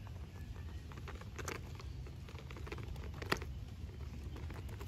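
Light plastic clicks and rattles as toy tyres are handled and pushed onto the metal axle rods of a plastic toy truck chassis, with one sharper click about three seconds in.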